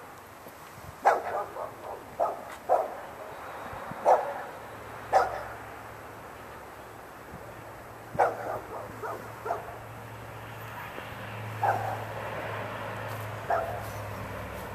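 A dog barking off and on, several barks in quick succession about a second in and again around eight seconds, with single barks between. A low steady hum runs under the second half.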